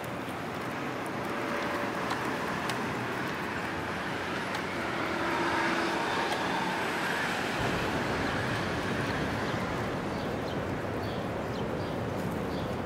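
Steady outdoor background noise, like road traffic, swelling a little over the first couple of seconds. A low rumble joins about halfway through.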